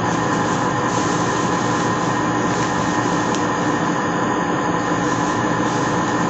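A steady droning noise at an even level, with a few held tones running through it.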